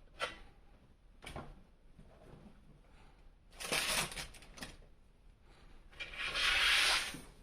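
Toy packaging being handled: two short clicks, then bursts of rubbing and scraping of plastic and cardboard. The longest and loudest burst comes near the end.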